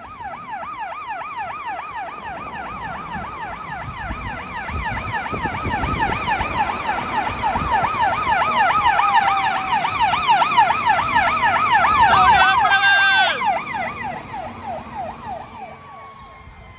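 Fire apparatus siren on a rapid yelp, growing louder as it approaches and passes, then fading. A short horn blast sounds at the loudest point, about twelve seconds in.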